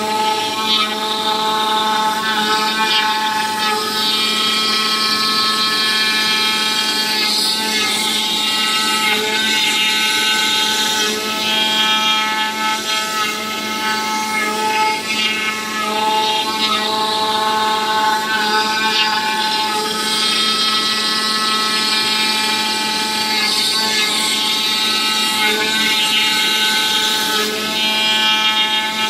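Oscillating knife CNC cutting machine running as it cuts and engraves EVA foam: a steady buzz from the vibrating knife, with overtones that come and go as the cutting head moves along the contour.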